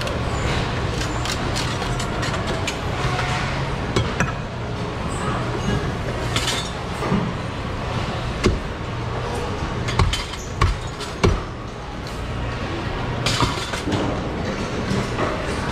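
Heavy cleaver chopping into a whole yellowfin tuna on a plastic cutting board: sharp knocks, a cluster of them in quick succession past the middle, over a steady background hum.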